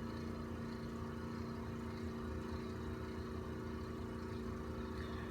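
Steady low electrical or mechanical hum, an even drone over a low rumble that holds without change.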